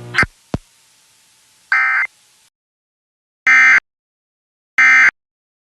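Emergency Alert System end-of-message data bursts: three short, buzzy digital chirps about a second and a half apart, marking the end of the alert. Before them a hum dies out and there are two clicks.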